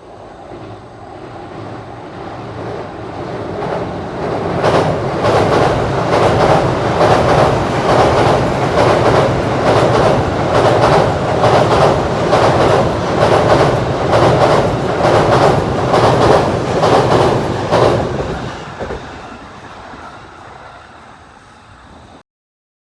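A Joban Line electric train passing at high speed. It builds over a few seconds into a long run of loud, regular clattering as its wheels pass, then fades away and cuts off suddenly near the end.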